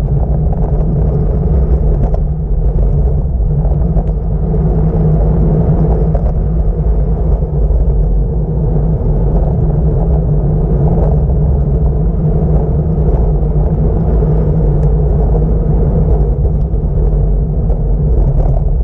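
Steady, loud wind rumble buffeting the camera microphone of a bicycle descending at speed.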